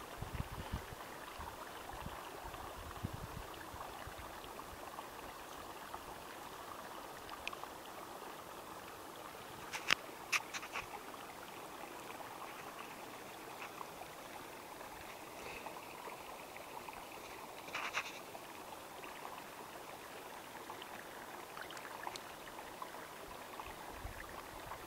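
Faint, steady trickling and lapping of hot spring water at the pool's surface, with a few brief ticks partway through.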